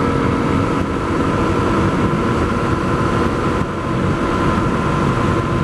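Honda CRF250L's single-cylinder engine running steadily at road speed through an FMF Q4 Hex slip-on exhaust, with a constant rush of wind and road noise.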